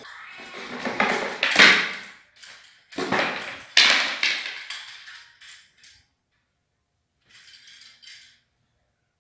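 Metal chain of a hanging bar rattling and clinking as a child grabs it and swings. It rattles in two loud spells over the first five seconds, then more faintly near the end.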